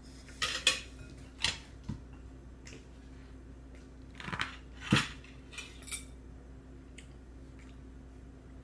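A spoon scraping and clinking against a metal bowl as food is scooped: several short scrapes and clinks in the first six seconds, the loudest about five seconds in, then a few faint ticks.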